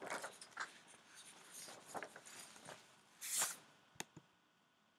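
Faint scratching of writing on paper in short irregular strokes, followed by two small sharp clicks about four seconds in.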